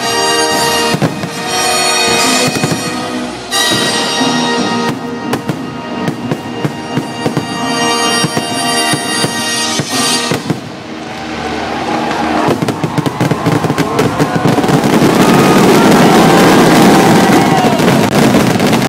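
Fireworks finale: many shells bursting in quick succession over orchestral music. The music stops about ten seconds in, and the bursts thicken into a dense, continuous barrage that is loudest near the end.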